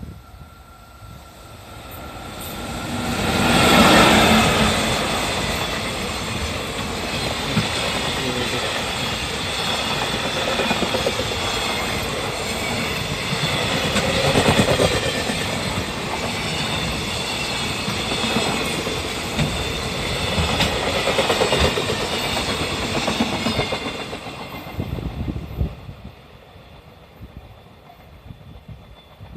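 Freight train hauled by an EF65 electric locomotive passing close by. The locomotive comes up loud about four seconds in, then a long string of freight wagons rumbles past with wheels clacking over the rail joints, and the sound fades away near the end.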